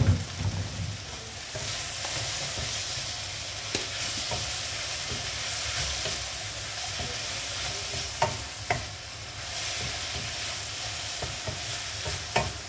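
Vegetables sizzling in a hot frying pan as a wooden spatula stirs them, with scattered scrapes and taps of the spatula on the pan and a sharper knock right at the start.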